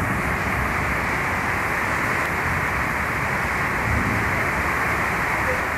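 Heavy monsoon rain pouring down steadily, a dense even hiss.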